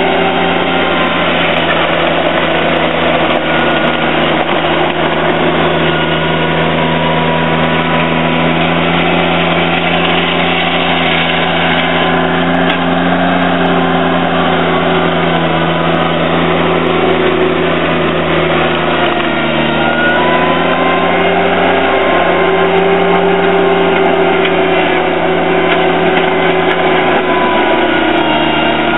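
John Deere 322 garden tractor's three-cylinder gas engine running steadily, its pitch wavering slightly up and down about two-thirds of the way through.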